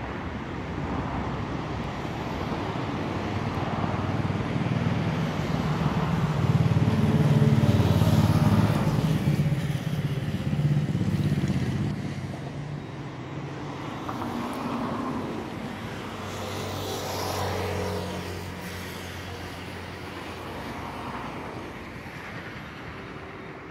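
Road traffic going past: vehicle engines swelling and fading one after another, the loudest pass about eight seconds in, with smaller passes later.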